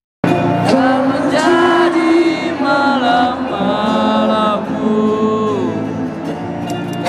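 Live band music with a voice singing long, held notes, recorded from among a stadium concert crowd; the sound cuts in suddenly just after the start.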